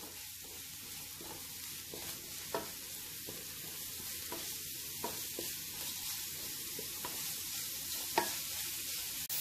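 Chopped onion, garlic, ginger and curry leaves sizzling in coconut oil in a non-stick wok while being stirred with a wooden spatula. A steady frying hiss runs under the scraping of the stirring, with a few light knocks of the spatula against the pan.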